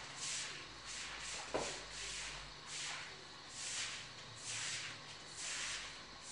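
Repeated swishing strokes of a long-handled floor-cleaning tool working soapy water over a wet tiled floor, under a second apart, with a single knock about one and a half seconds in.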